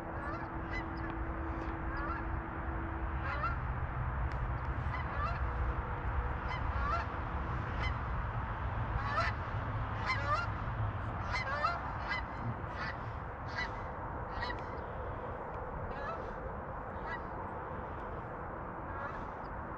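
Geese honking: many short, upward-hooked honks in quick, irregular succession, over a steady low rumble.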